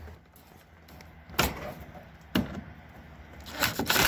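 Wooden boards knocking sharply twice as they are pushed into place against a coop wall. Near the end a cordless drill starts up and runs steadily, driving the boards in.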